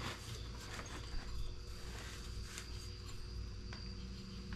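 Handling noises as a large turbocharger is turned over in the hands: a few light knocks and clicks with some rustling, over a steady electrical hum.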